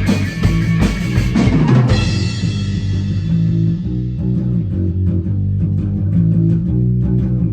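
Rock music with drum kit, bass and electric guitar. About two seconds in, the drums and cymbals drop away, leaving bass and guitar with light taps.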